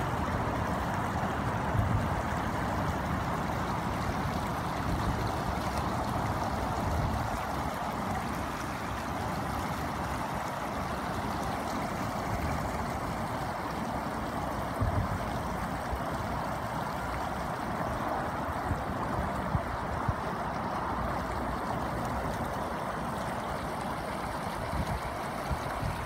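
Steady rushing of flowing river water, with a low rumble underneath and a few brief bumps.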